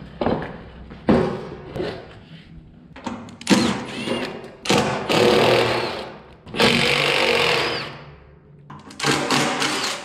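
A handheld power tool runs in bursts while bolts are backed out of the forklift's sheet-metal panels. There are a few short spurts, then two longer runs of about two seconds each in the middle, and another short run near the end.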